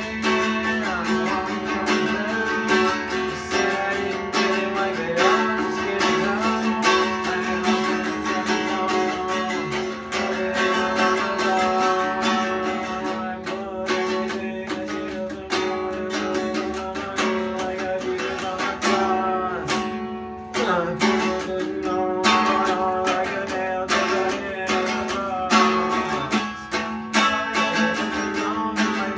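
Semi-hollow electric guitar played with a pick, a steady run of picked notes and strummed chords without pause.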